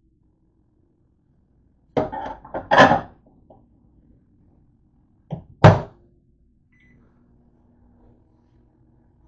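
A plate clatters as it is set into a microwave oven, and the door shuts with two thuds. A short faint beep follows, then the microwave runs with a low steady hum.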